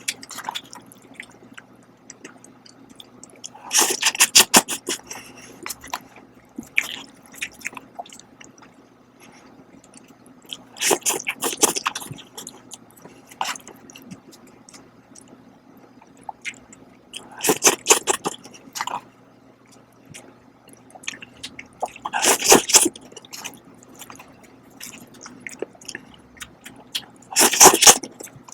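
A person eating Shin ramyun cup noodles close to the microphone: loud wet slurps about a second long come roughly every five to six seconds, with quieter chewing and small mouth clicks between.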